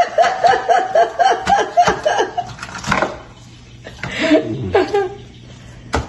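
A person laughing: a run of short 'ha' syllables, about five a second, each falling in pitch, for the first two seconds, then a shorter laugh about four seconds in. A light knock comes near the end.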